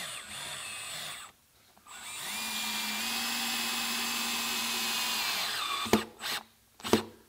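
Cordless drill-driver driving a screw through a counterbored hole into a timber workbench frame: a short burst, a pause, then a steady run of about three and a half seconds that spins up and winds down. Two sharp knocks near the end.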